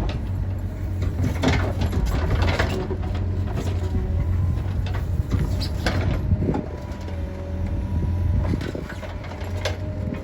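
Cat 432F2 backhoe loader's diesel engine running steadily, with several sharp knocks and clanks scattered through. A faint steady whine joins in from about six seconds.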